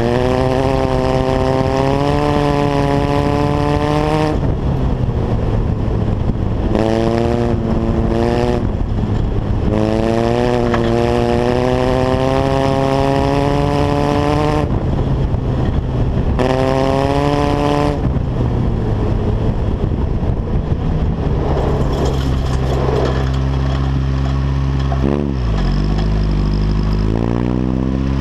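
Small off-road buggy's engine pulling hard under throttle again and again, its pitch climbing through each run and breaking off between runs, over a steady rush of noise. In the last third it runs lower and steadier, its pitch dipping sharply and rising again twice.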